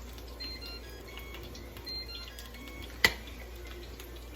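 A corn tortilla taco deep frying in canola oil, sizzling and crackling with scattered little pops. One sharp knock about three seconds in.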